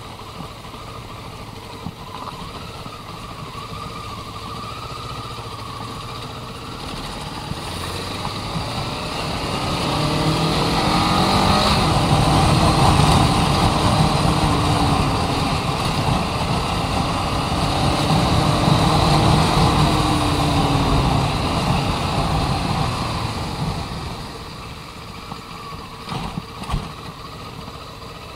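Motorcycle engine running during a ride, heard from a camera on the rider's chest. The engine note rises and gets much louder about ten seconds in, stays loud for about ten seconds, then falls away. A few sharp knocks come near the end.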